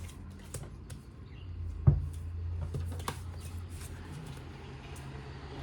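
Tarot cards being handled and shuffled: scattered soft clicks and rustles, with one sharp knock about two seconds in, over a low steady hum.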